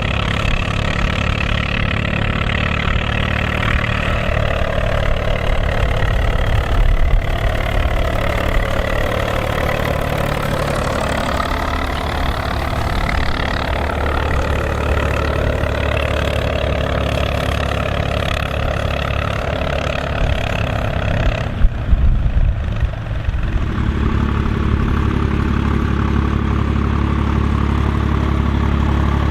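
Volvo BM tractor's diesel engine running steadily while ploughing. About three-quarters through, the sound changes abruptly, with a couple of sharp knocks, then settles into a steadier, deeper engine note.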